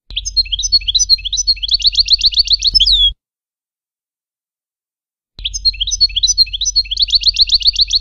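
European goldfinch song in the Levantine (Shami) style, a tutor song for young goldfinches. The same phrase is heard twice, about three seconds each, with dead silence between: twittering notes that run into a rapid trill and end on a falling note.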